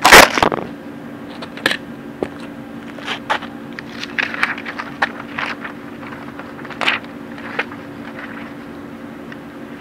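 Handling noise as the camera is set down with a loud knock, then scattered paper rustles and light scrapes as a paper target sheet is picked up and stood back against a box, over a steady low hum.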